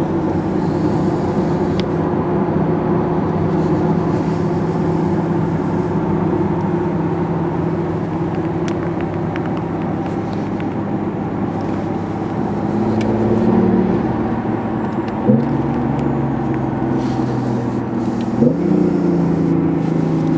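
BMW i8's turbocharged three-cylinder engine running steadily under way. Its pitch climbs gradually, then jumps sharply and briefly twice, with a short loud spike each time, like gear changes.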